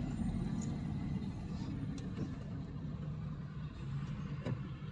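Steady low rumble of a car's engine and road noise heard from inside the cabin, creeping in heavy traffic. A faint click about two seconds in and another near the end.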